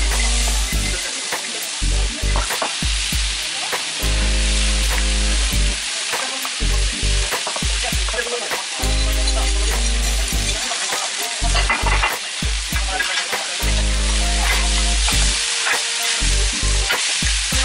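Shredded cabbage sizzling on a hot steel teppan griddle as it is tipped from a bowl and worked with metal spatulas. Frequent sharp clicks and scrapes of the spatulas on the plate sound over a steady frying hiss.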